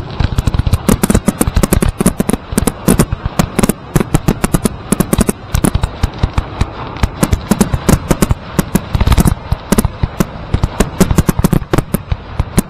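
Class B display fireworks finale: aerial shells bursting in a dense, unbroken run of bangs, several a second.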